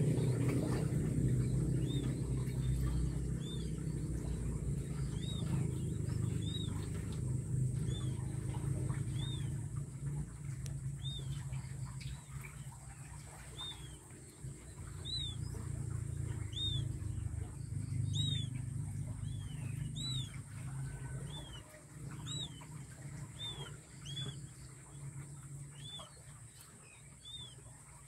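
Newly hatched king quail chicks peeping: short high chirps, each rising and falling, about one a second and coming a little more often in the second half, over a steady low hum.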